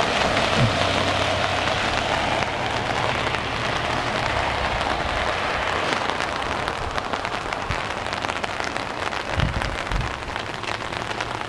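Steady light rain, a dense patter of small drop ticks over an even hiss. A faint low hum sits under it for the first few seconds.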